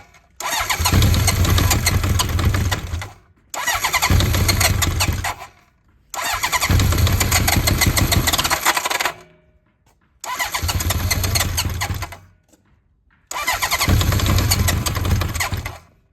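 Electric starter cranking the cold 985cc big-bore Honda CB900F inline-four in five bursts of about two to three seconds each, with short pauses between them. The engine turns over without starting: a cold start with no choke, on Keihin FCR33 flatslide carburettors.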